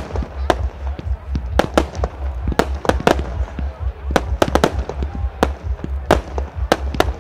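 Rohan 'Spirit Catcher' fireworks battery firing shot after shot: sharp bangs of lifts and small star bursts come irregularly, about three a second, over a steady low rumble.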